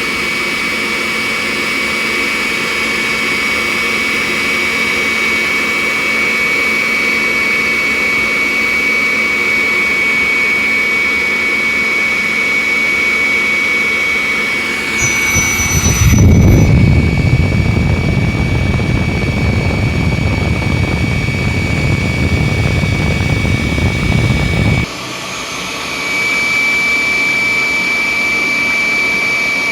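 Homemade vacuum cleaner running, its small electric motor and fan giving a steady high whine. About halfway through, the sound turns louder and rougher for roughly nine seconds, then drops back to the steady whine.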